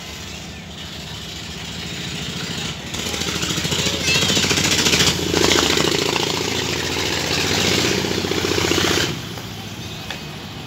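Diesel locomotive engine running with a steady low throb as it pulls a passenger train away from the station. A louder hissing rush rises about three seconds in and cuts off suddenly near the end.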